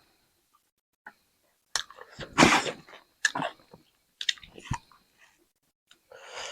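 Close-miked chewing and biting while eating spicy chicken, in short separate bursts of mouth noise and clicks with silent gaps, the loudest about two and a half seconds in.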